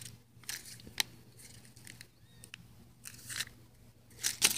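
Clear plastic packet of fishing hooks being handled, crinkling faintly, with scattered small clicks and a louder crinkle of the plastic near the end.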